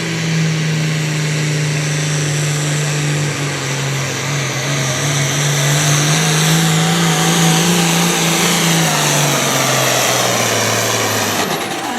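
International Harvester Pro Farm pulling tractor's turbo diesel engine running flat out under load as it drags the sled. Its pitch slowly sags, drops lower about nine seconds in, and the engine note cuts off just before the end.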